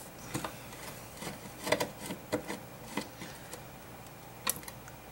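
Scattered light clicks and scrapes of a screwdriver and small metal screws being worked out of a car amplifier's metal casing, a few irregular ticks a second apart.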